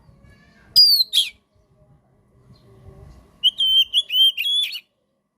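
Oriental magpie-robin (kacer) singing: two loud, sharp whistled calls about a second in, one falling and one sweeping quickly down, then a quick run of about five repeated whistled notes with hooked ends near the end.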